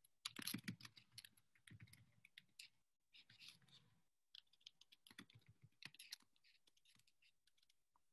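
Faint computer-keyboard typing: quick runs of key clicks, pausing briefly about three seconds in and again about a second later.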